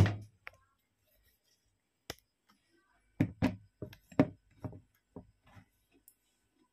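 Handling knocks: a sharp click at the start, a couple of faint ticks, then a cluster of about eight light knocks and thumps over two seconds from about three seconds in, as the phone camera is adjusted on the table.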